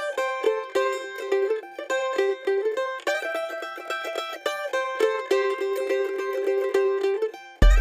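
Background music: a quick, bright plucked-string tune with no bass, until a low bass line comes in near the end.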